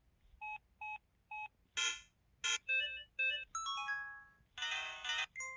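A string of short electronic interface sounds from an IM-U440K mobile phone. It opens with three identical short beeps, then two clicky hits, quick pitched chirps, a falling run of notes and a brief chord-like jingle.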